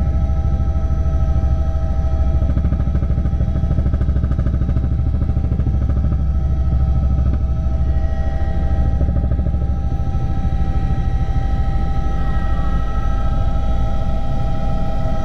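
Helicopter in flight heard from inside the cabin: a steady deep drone of the rotor blades and turbine, with a constant high whine over it.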